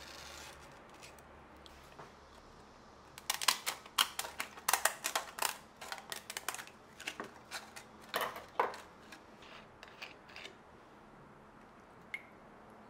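A quick, irregular run of sharp clicks and snips from kitchen work at the counter. It starts about three seconds in, is densest at first, thins out and stops about ten seconds in, with one last click near the end.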